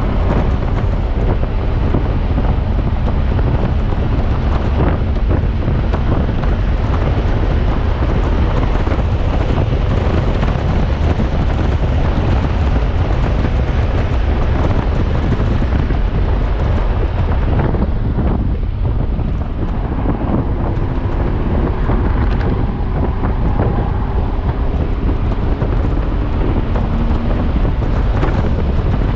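Heavy wind buffeting the microphone of a car at track speed, with the Audi S5's engine running underneath. In the last third a faint tone slowly rises in pitch.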